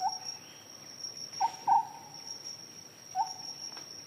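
Bush ambience: a steady high insect trill under a bird's short low hooting calls. There is one call at the start, two in quick succession about a second and a half in, and one more after three seconds.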